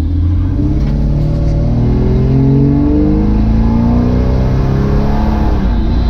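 Jeep Cherokee XJ's 4.0 inline-six engine accelerating under throttle, its pitch climbing over the first few seconds and then dropping near the end.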